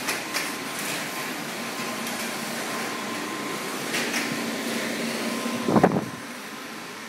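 Steady drone of factory ventilation and machinery, with a thin steady whine above it and a few light clicks. A loud low thump comes about six seconds in, and the drone is quieter after it.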